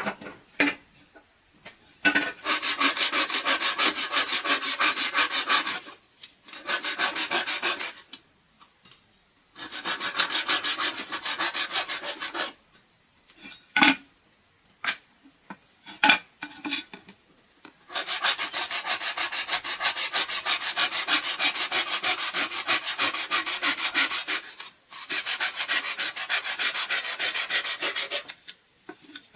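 A hand tool scraping raw wood in fast, even strokes. The strokes come in five runs of a few seconds each, with short pauses and a few sharp knocks between them.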